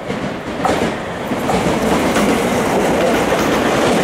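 Navy-blue Sotetsu (Sagami Railway) electric train running past, with steady wheel-on-rail rumble and clickety-clack over the rail joints. The sound grows louder about a second in and then holds steady.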